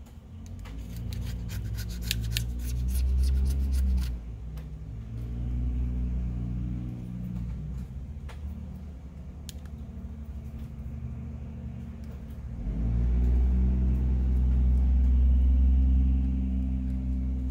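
Low engine rumble of a road vehicle, swelling up and fading away twice. In the first few seconds it comes with a quick run of small metal ticks and clicks from a pick working on the phone's frame.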